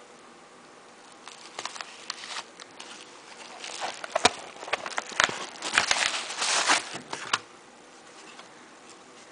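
Paper padded mailer crinkling and rustling as it is handled and opened, with sharp crackles and rubbing noises. It starts about a second in and stops about seven seconds in.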